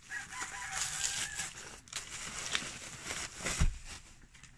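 Bubble wrap and kraft paper crinkling and rustling as a parcel is unwrapped by hand, with a soft thump about three and a half seconds in.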